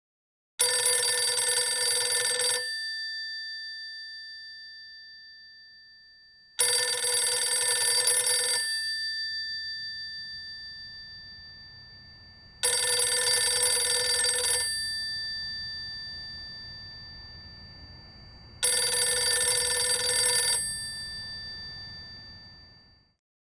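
Old desk telephone's bell ringing four times, each ring about two seconds long and starting about six seconds after the last, with the bell's tone fading slowly after each ring.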